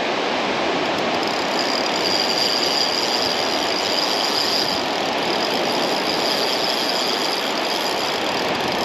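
Spinning surfcasting reel being wound in steadily, a continuous whirring with a faint high whine from about a second in, over the rush of surf.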